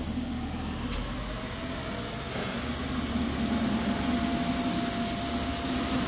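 Steady mechanical hum, with a single click about a second in and a faint high steady tone joining about halfway through.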